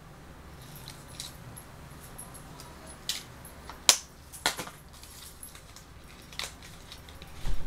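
Light clicks and clinks of small plastic makeup compacts being handled: a handful of sharp ticks scattered through, the loudest about four seconds in, and a soft low thump near the end.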